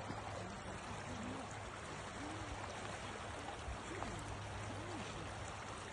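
Steady rush of flowing river water, with a few faint, distant voices now and then.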